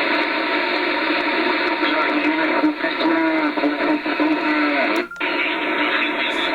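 Kenwood TS-2000 ham transceiver putting out steady band static through its speaker, with a faint, garbled voice coming through the noise in the middle. The hiss breaks off briefly about five seconds in.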